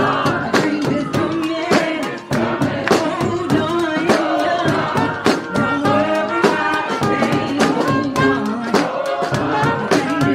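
Street brass band playing live: horns carry the tune and harmony over a steady, driving drumbeat.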